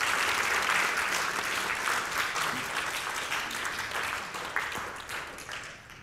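Audience applauding, strongest in the first couple of seconds and slowly thinning out.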